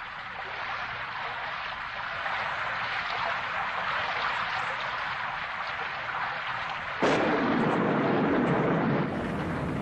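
Steady rain hiss that fades in over the first second or two, then a sudden loud clap of thunder about seven seconds in that rumbles for about two seconds before easing back under the rain.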